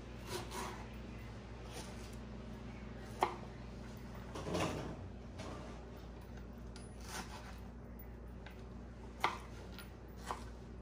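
Kitchen handling sounds of utensils and dishes: a sharp knock about three seconds in, a longer, duller noise around four and a half seconds, and two more sharp knocks near the end, over a steady low hum.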